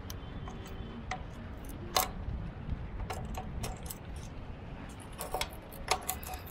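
Steel tubular box spanner clinking against the nuts and metal mounting flange of a generator's dual carburetor as the nuts are tightened down: scattered light metallic clicks at irregular intervals over a steady low background rumble.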